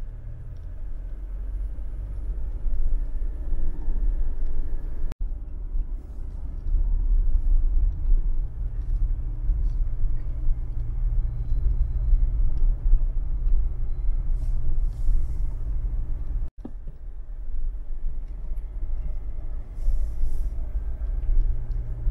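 A car driving: a steady low rumble of engine and road noise, which cuts out abruptly for a moment twice.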